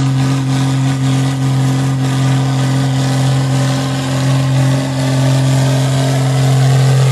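Engine idling sound effect: a loud, steady, unchanging motor hum at one constant pitch.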